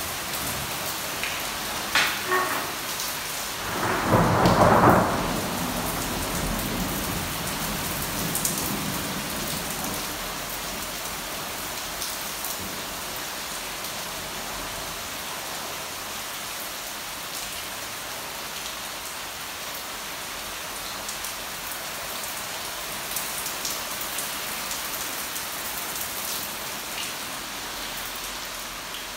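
Steady heavy rain from a thunderstorm, with a sharp crack of thunder about two seconds in and a loud thunderclap about four seconds in that rumbles away while the rain keeps on.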